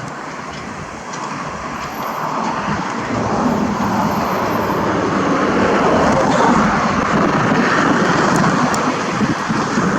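A car driving close by, its engine and tyres growing louder over the first several seconds as it approaches, then holding steady.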